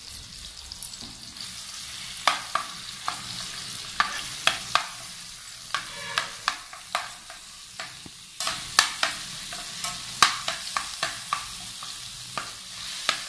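Green chillies and ginger-garlic paste sizzling in hot oil in a frying pan, with a steady hiss. A spoon stirs them and knocks and scrapes against the pan in irregular sharp clicks.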